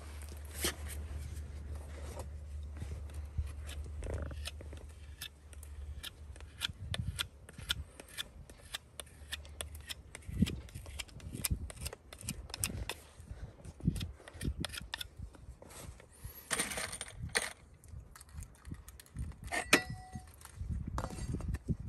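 Steel horseshoe being fitted against a horse's trimmed hind hoof: scattered light metallic clicks and short scrapes. A low steady hum stops about ten seconds in.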